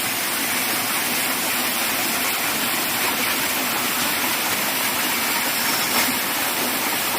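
Waterfall: water pouring down from a hill, giving a steady, unbroken rushing sound.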